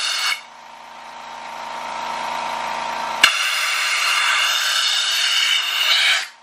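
Compressed-air blowgun hissing through an oil pump pickup tube to blow out any debris: a short blast ends just after the start, then a longer blast begins with a click about three seconds in and cuts off suddenly near the end. An air compressor runs steadily underneath.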